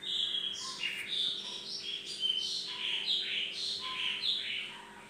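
A small songbird chirping a rapid, continuous series of high notes, many of them sweeping downward, starting suddenly and dying away near the end, over a faint steady hum.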